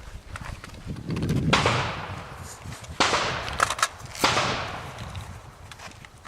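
Three shotgun shots about a second and a half apart, each with a sharp crack and a decaying echo, with smaller clicks in between.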